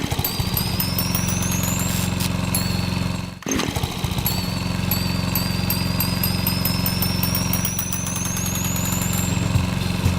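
A steady machine-like rattle over a low hum, with a thin wavering whistle that rises slowly twice. The sound breaks off briefly about three and a half seconds in.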